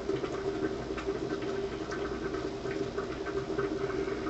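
Hands peeling the casings off raw chicken sausages: faint sticky, crinkling handling with scattered small clicks, over a steady kitchen hum.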